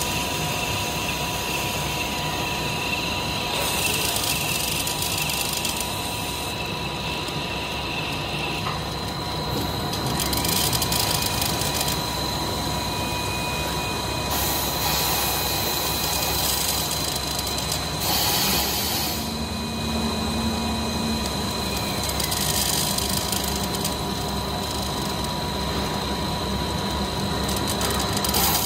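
Automatic cutting winder for bubble film running: a steady machine hum with a constant high whine, and a second whine that drops in pitch, rises again and later drops as the winding speed changes. Short bursts of hiss come every few seconds.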